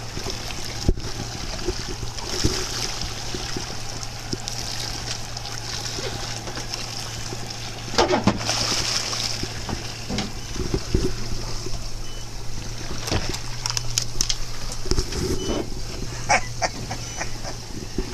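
A hooked fish splashing and thrashing at the surface beside a boat as it is reeled in, with water sloshing against the hull over a steady low hum. Scattered knocks and clicks come near the end as the fish is lifted aboard.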